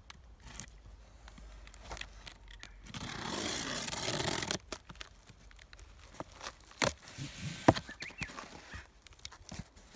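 Box cutter slicing through the packing tape and cardboard of a solar panel carton: one sustained scraping cut lasting about a second and a half, followed by sharp clicks and knocks as the cardboard is handled, the loudest a little past the middle.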